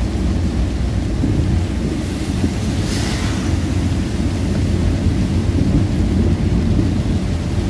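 Steady low rumble of a vehicle driving on a rain-soaked road in heavy rain, heard from inside the cabin: road, engine and rain noise together. A brief hiss about three seconds in.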